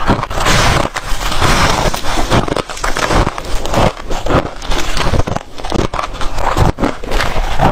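Freezer frost being bitten and chewed close to the microphone: a dense, continuous run of crunching and crackling.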